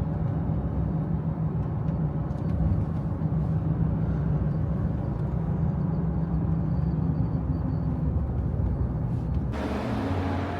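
Jeep driving along, with a steady low rumble of engine and road noise. About nine and a half seconds in, the sound changes abruptly to a lighter, hissier noise.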